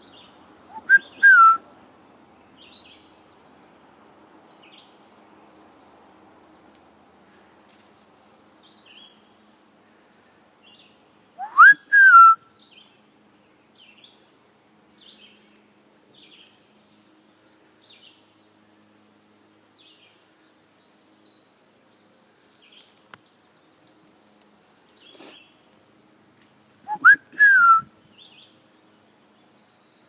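A person whistling an imitation of a bird call three times, each time a short note followed by a longer whistle that rises and then slides down. Faint, short bird chirps come in between.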